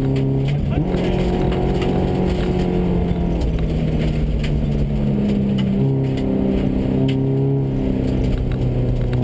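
Subaru rally car's boxer flat-four engine heard from inside the cabin at speed. Its note holds steady, then shifts pitch in steps several times as the driver changes gear and lifts off. Sharp ticks of gravel hitting the car are scattered through it.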